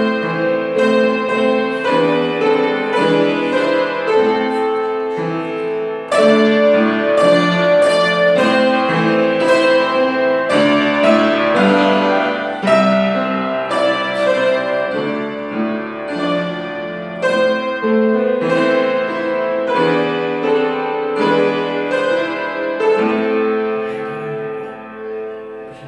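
Piano playing a piece, with a brief break about six seconds in, ending on a last chord that dies away.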